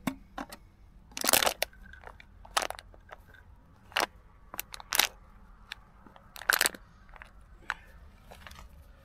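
A plastic rubbish bag being handled: a dozen or so separate sharp crunches and crinkles at irregular intervals, the loudest about a second in and again about two-thirds of the way through.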